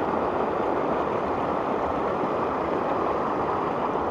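Small river rushing over a whitewater rapid: a steady, even wash of water.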